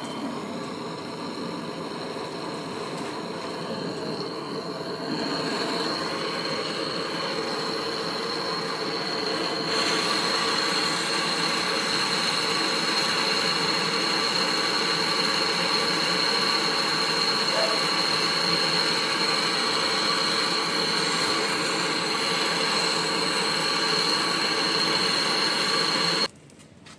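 A machine running steadily with a high-pitched whine. It gets louder in two steps, about five and ten seconds in, and cuts off suddenly near the end.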